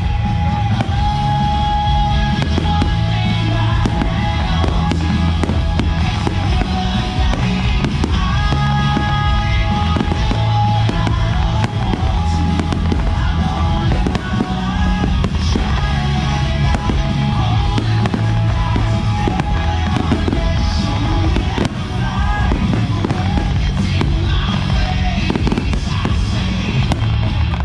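Aerial fireworks shells bursting again and again, mixed with loud music playing throughout.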